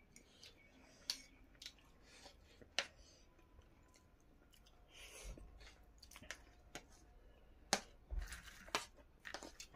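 People eating at a table: scattered light clicks and clinks of plates and cutlery, with faint chewing, and a sharper clink about three seconds in.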